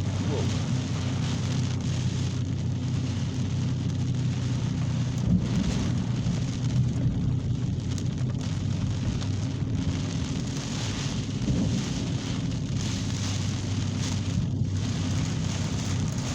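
Heavy rain pouring steadily during a severe thunderstorm, over a continuous low rumble.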